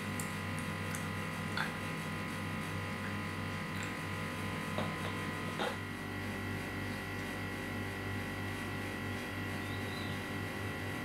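A steady electrical hum with a faint high whine, and a few light clicks about one and a half, five and five and a half seconds in.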